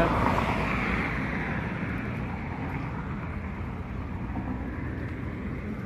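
Roadside traffic noise: a passing vehicle fades away over the first couple of seconds, leaving a steady hum of road traffic.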